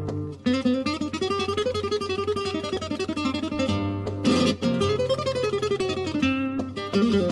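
Flamenco guitar playing bulerías: quick runs of plucked notes, broken by sharp strummed chords a little past four seconds in and again near the end.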